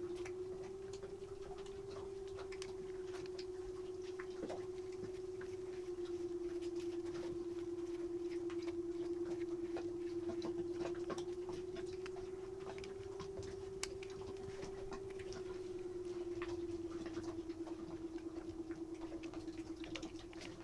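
Light clicks and scratches of a screwdriver turning small screws into the brush end plate of a starter motor, over a steady hum that wavers slightly in pitch.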